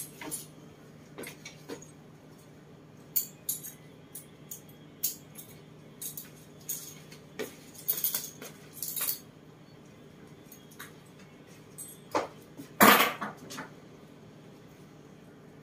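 A string of light, sharp clinks and clicks, several a second through the middle, then one louder, longer noise near the end.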